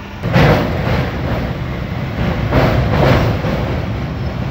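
Passenger train running onto a steel bridge, heard from inside a coach at an open window: the rumble grows suddenly louder about a third of a second in. Pairs of wheel clacks over rail joints come about every two seconds.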